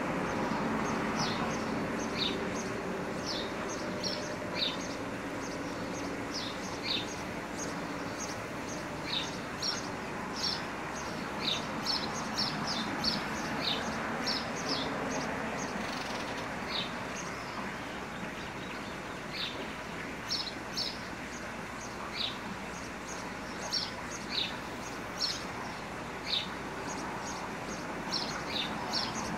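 Small birds chirping, short high chirps coming singly and in quick clusters of two to four, over a steady background rush.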